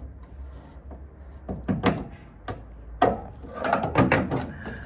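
Scraping, clicking and knocking of hands and a tool on a Valiant Charger's windscreen wiper arm as it is worked loose from its spindle. The sounds come in several short bursts and are loudest about three to four seconds in.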